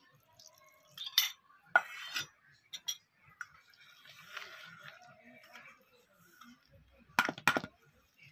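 Steel spoon and wire whisk clinking and scraping in a stainless steel bowl as milk is poured in and beaten into a crumbly biscuit batter. There are sharp clinks about a second in, a soft scraping stir in the middle, and two loud clinks of the whisk on the bowl near the end.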